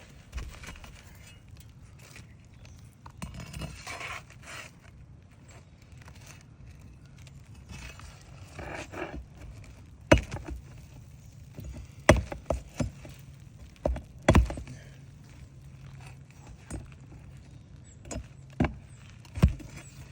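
Metal tool scraping under a roof shingle and clinking against the roofing nails as they are worked loose, with a run of sharp knocks and clinks in the second half.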